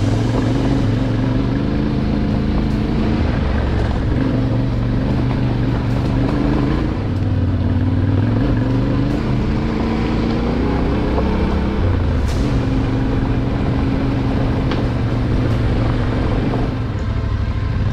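Yamaha Ténéré 700 motorcycle engine running under way, its revs rising and falling as the bike is ridden.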